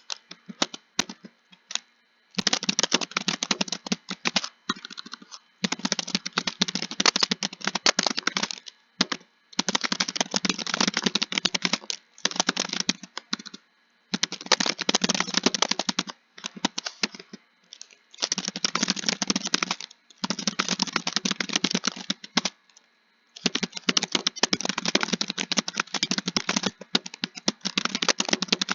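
Computer keyboard typing: rapid runs of keystrokes lasting a second or two at a time, broken by short pauses.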